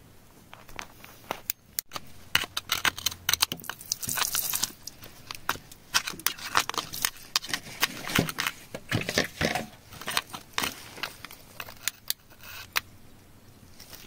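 A metal tool scraping and prying at wet, crumbly clay around embedded stones, making a busy run of sharp clicks, crackles and gritty scrapes that picks up after about two seconds.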